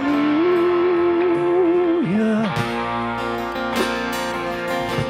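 Live worship band playing an instrumental passage between sung lines: electric and acoustic guitars over bass and drums. A held note dips and ends about two and a half seconds in, then the guitars carry on with steady chords and a few drum hits.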